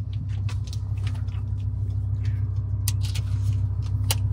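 BMW E60 M5's V10 engine idling steadily, heard from inside the cabin, with scattered small clicks and knocks as a camera and its bag are handled on the passenger seat.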